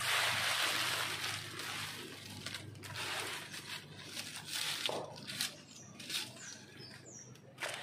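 Dry leaves rustling and crackling as they are gathered and dropped into a compost bag. The rustle is loudest in the first second or so, then comes as scattered short crackles.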